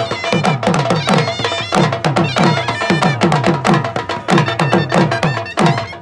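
Dhol drums beating a fast dance rhythm for the Khattak dance, about three strokes a second, each deep stroke dropping in pitch, with a held melody line above.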